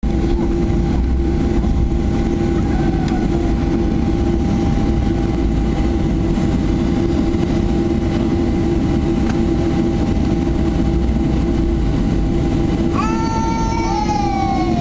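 Boeing 737-800 cabin noise: the CFM56-7B turbofan engines running with a loud, steady rumble and a steady hum. About two seconds before the end, a set of tones comes in and glides downward in pitch.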